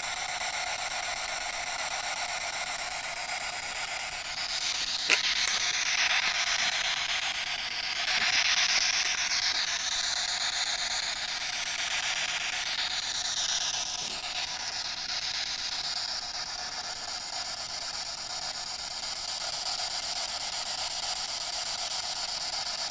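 SB7 spirit box sweeping through radio channels inside a wire-mesh Faraday cage, giving a steady rush of static from its small speaker. The static swells louder for a few seconds near the middle, with a single click about five seconds in.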